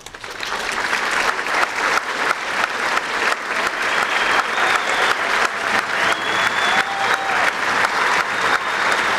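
Audience applauding as the final notes of a school string orchestra piece fade out. The clapping starts and swells quickly, then carries on strongly.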